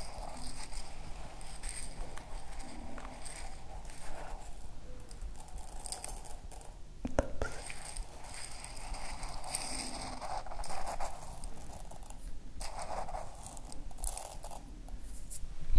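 Dry vialone nano rice grains rustling and clinking in a small glass as a fingertip stirs and digs through them, in short irregular stretches with a sharper click about seven seconds in.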